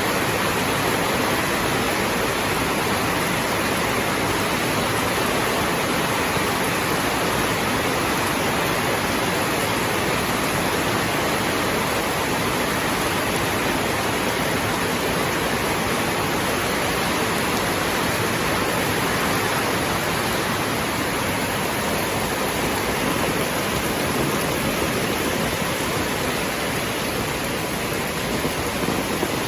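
Rain falling steadily, a dense, even hiss with no letup.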